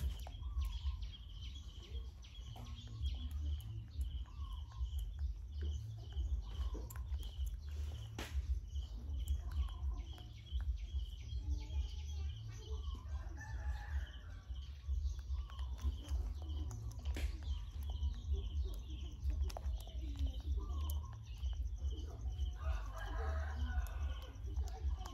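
A monkey's fingers picking through a man's hair right by the microphone, giving small clicks and rustles over a low rumble. A rooster crows twice in the background, about halfway through and near the end.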